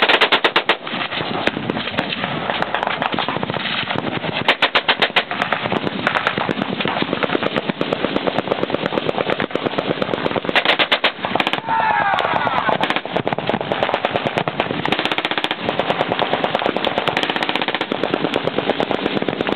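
Several machine guns firing fully automatic at once: a continuous rattle of long, overlapping bursts of rapid shots.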